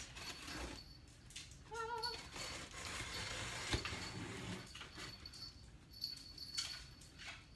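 Box cutter slitting the packing tape along a cardboard box seam: scratchy scraping and tearing through the middle, with a sharp click partway. A short whine about two seconds in.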